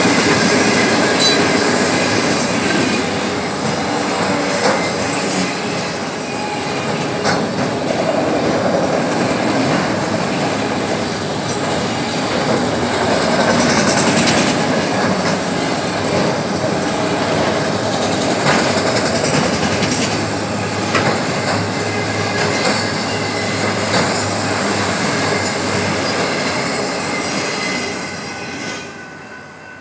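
Freight train rolling past at a road crossing, its cars running steadily over the rails with scattered clanks. The sound dies away near the end as the last cars clear the crossing.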